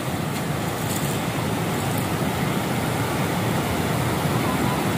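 Steady rush of water spilling over a dam's weir.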